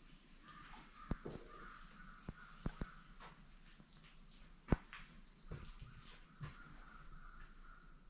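Faint, steady high-pitched insect chorus, with a few light clicks scattered through it.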